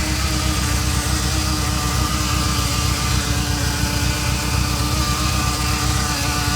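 Ferrari Mondial 3.2's V8 idling with a steady buzz over the idle. The owner notes the buzz starts after a cold start as oil pressure rises and seems loudest at the braided oil hoses running to the fan.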